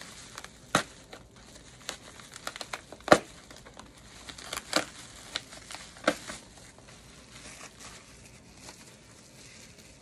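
Plastic bubble wrap crinkling and crackling as a roll of it is handled, with several sharp, louder crackles; the loudest comes about three seconds in.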